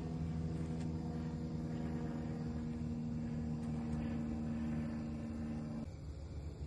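A motor humming steadily over a low rumble, stopping abruptly about six seconds in.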